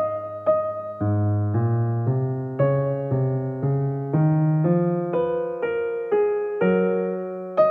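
Background music: a gentle electric-piano melody with a new note about every half second over a slowly changing bass line.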